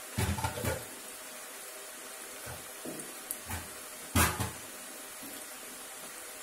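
Gavvalu, small rice-flour dough shells, deep-frying in a pan of hot oil: a steady bubbling sizzle. A few dull knocks fall in the first second and again between two and four and a half seconds in; the loudest is about four seconds in.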